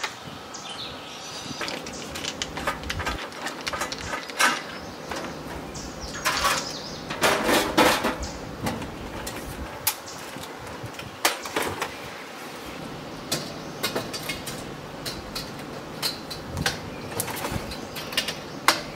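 Irregular clatter, clinks and knocks of camping gear and dishes being handled and packed up, with a denser, louder rattling stretch about halfway through.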